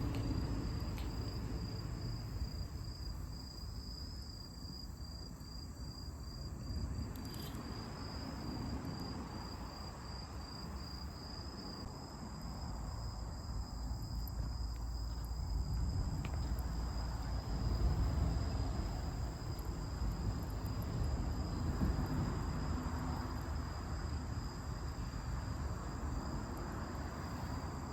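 Insects chirping in a steady, high, pulsing trill, over a low rumbling noise with a few faint clicks.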